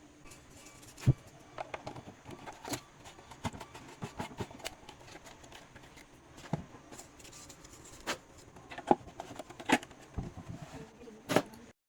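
Scattered light clicks and taps of small hard objects being handled, irregular, with a sharper knock about a second in and another near the end. The sound cuts off abruptly just before the end.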